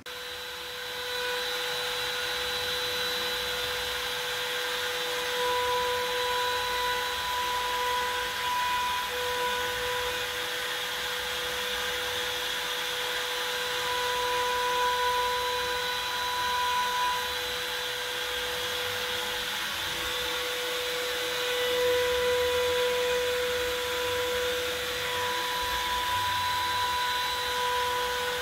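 Makita compact trim router spinning as the spindle of an MPCNC (Mostly Printed CNC), carving a pine board inside a wooden enclosure: a steady high whine with cutting noise, and a higher tone that swells and fades several times as the machine works.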